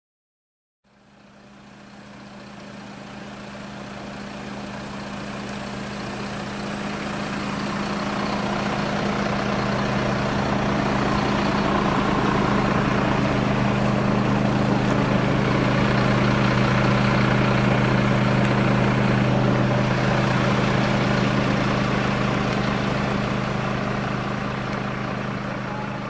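A fire-service vehicle's engine idling steadily with a constant low hum. It fades in over the first several seconds and then holds level.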